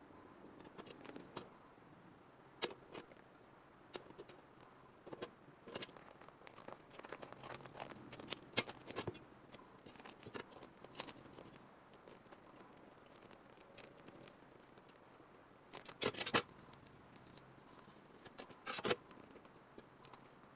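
Hand tools working on a car's rusted sheet-metal body panels: scattered sharp clicks and scrapes, then two louder half-second rasps near the end.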